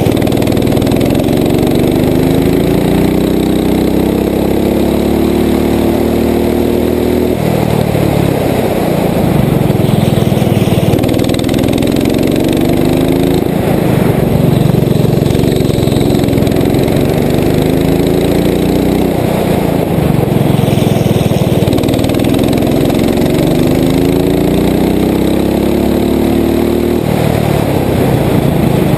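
Rental racing kart's engine running at full throttle, its pitch climbing steadily several times and dropping sharply when the kart slows for the corners.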